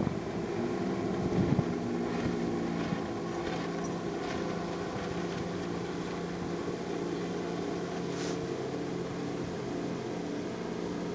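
Tohatsu outboard motor on a 22-foot plywood skiff, running steadily at speed as the boat passes. Its pitch shifts slightly about three seconds in.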